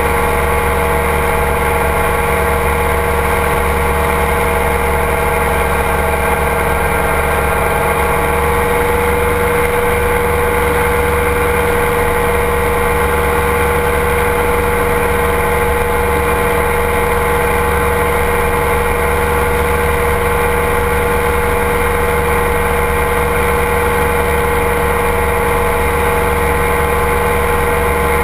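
Ultralight aircraft's engine and propeller running at a steady cruise: a constant drone that holds one pitch, with air rushing over the camera's microphone.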